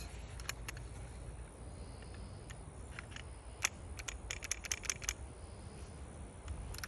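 Light clicks and rattles of a Glock 19-pattern pistol with a 3D-printed frame being handled while a failure to extract is cleared, with a quick run of clicks around four to five seconds in.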